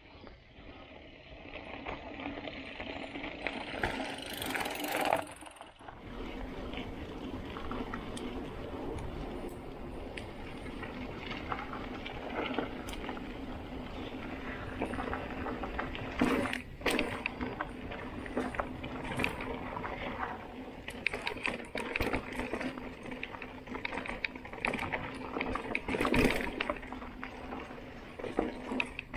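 Mountain bike rolling along a dirt and gravel trail: steady tyre and rolling noise with the bike rattling, and sharp knocks over bumps, the loudest about sixteen and twenty-six seconds in.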